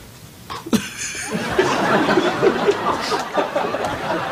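Several people laughing together at a flubbed take on a sitcom set. The laughter starts about a second in and quickly builds to a dense, full-level mix of overlapping voices.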